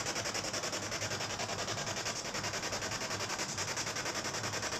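Ghost-hunting spirit box sweeping through radio stations, giving rapid, even pulses of hissing static.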